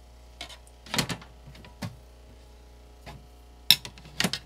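Sharp clicks and light knocks from a glass reptile enclosure being handled and shut: a few single clicks spaced out, then a quick run of louder clicks near the end.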